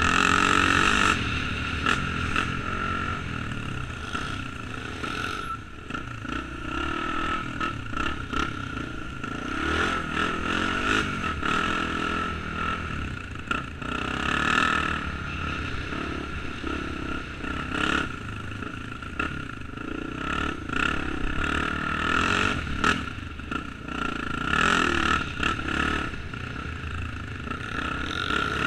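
Honda XR enduro motorcycle's single-cylinder four-stroke engine under way on a rough dirt track, revving up and easing off with the throttle, with frequent knocks and rattles from the bike going over stones and ruts.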